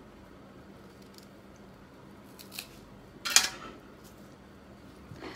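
A small knife paring and cutting a firm green fruit held in the hand: a few faint scrapes, then one loud, crisp cut a little past halfway.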